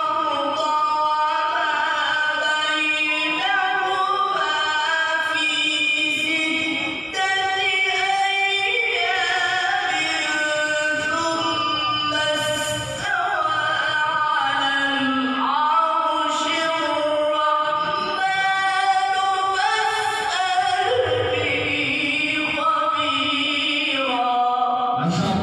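A man reciting the Quran in the melodic tajweed style, in maqam Saba, into a microphone: long, ornamented, sung phrases with gliding and held notes, broken only by short breaths about 7 and 13 seconds in.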